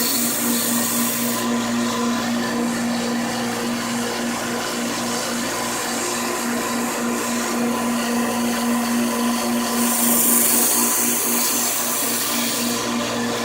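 Belt grinder running with a used 400-grit belt while a kitchen knife edge is ground on it: a steady motor hum under a high grinding hiss that swells and fades several times.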